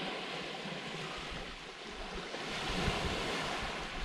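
A steady hush of wind and gentle surf that swells about three seconds in, with gusts buffeting the microphone.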